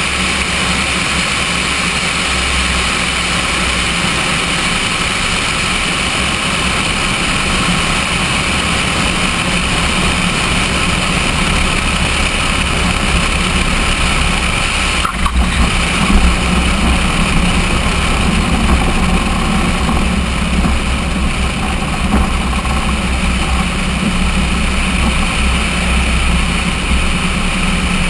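Cessna 172's piston engine and propeller running steadily under heavy wind rush over a camera mounted outside the fuselage, through the landing and rollout. A brief knock about fifteen seconds in as the wheels touch down on the runway.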